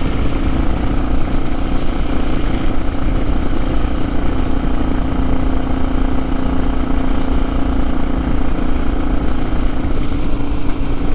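Motorcycle engine running at a steady speed while riding, a constant engine tone under a low rush of wind noise on the microphone.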